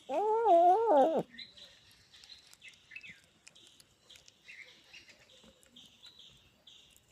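A cat giving one long, drawn-out meow lasting a little over a second, followed by faint short high chirps and ticks.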